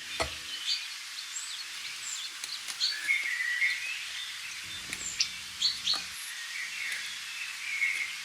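Birdsong: several small birds chirping and calling over a light background hiss, with a few light clicks and knocks among the calls.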